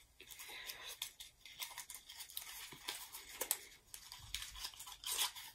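Hands opening and handling a liquid lipstick and its small packaging: light rustling and crinkling with small clicks and scrapes, and a louder rustle near the end.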